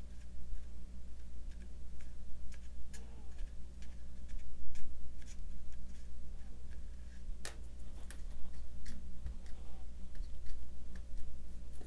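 Light clicks and rustles of paper handling as a glued quilling-paper strip is worked around a round cylindrical form and slid off it, over a steady low hum.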